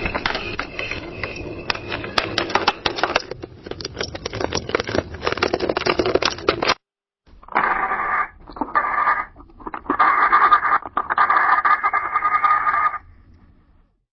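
Coffee maker brewing. First comes a dense crackling and sputtering that stops suddenly. After a short gap there is a hissing gurgle with a steady whistling tone, in four bursts, the last one longest.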